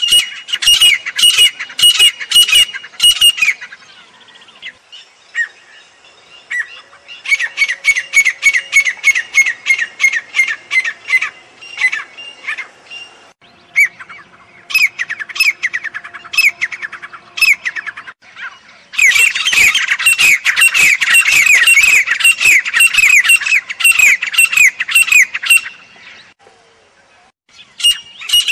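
Grey francolin calling: loud bouts of rapid, harsh repeated notes, four runs of a few seconds each, the last and longest about seven seconds, with short pauses between them.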